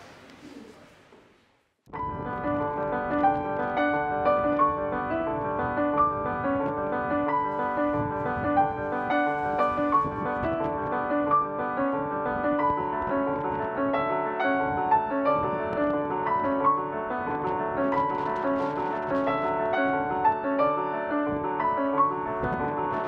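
Instrumental background music. A fading passage dies away to a brief gap, then a steady run of quick, repeated notes starts about two seconds in and carries on.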